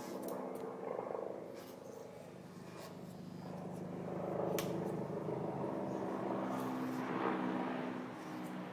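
Corded electric dog clippers buzzing steadily as they shear a dog's thick coat, growing louder for stretches in the middle and near the end. A sharp click about four and a half seconds in.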